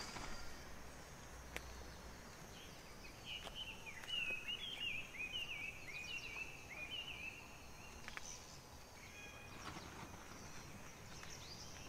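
A bird calling a quick run of about ten repeated down-slurred notes, roughly two or three a second, starting about three seconds in and lasting about four seconds, over a faint steady high hiss.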